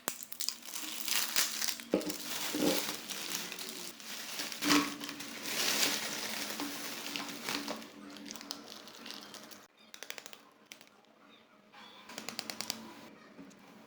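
Packaging crinkling and rustling as a pet treat is unboxed, in irregular bursts for the first eight seconds or so. It then goes quieter, with a quick run of small clicks near the end.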